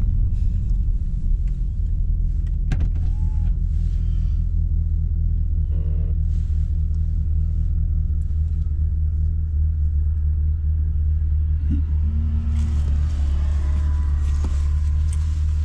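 Chevrolet Camaro's engine idling, a steady low rumble heard from inside the cabin.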